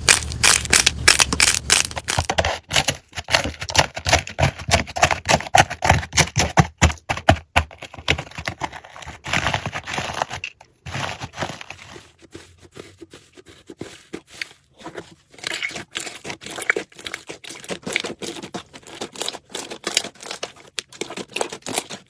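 Slime being squeezed and pressed by hand, making a rapid run of crackles and small pops. They are densest and loudest over the first several seconds, then sparser and softer.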